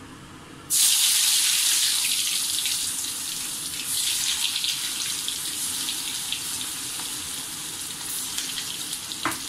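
Soybean cutlets sizzling as they are dropped one by one into hot oil in a kadai. A loud frying hiss starts suddenly about a second in as the first cutlet goes in, and swells again about four seconds in as another is added, then eases off slightly.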